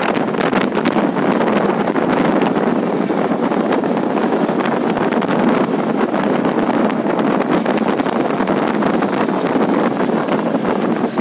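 Steady rush of wind and road noise from a moving SUV, with wind buffeting the microphone.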